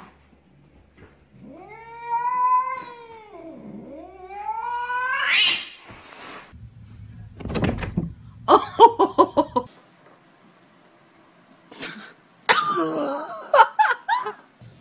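Cats meowing: one long drawn-out meow that sinks low in the middle and climbs to a high end, then a dull thump and a quick stuttering run of about eight short calls, and near the end another wavering meow with a few sharp clicks.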